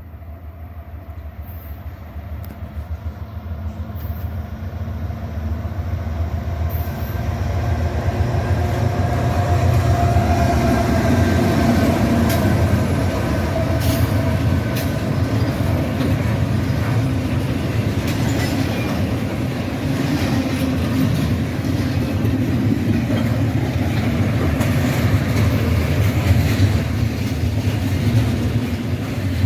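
Diesel-hauled train approaching, growing steadily louder over about ten seconds, then passing close by with a steady low running noise of locomotives and rolling cars.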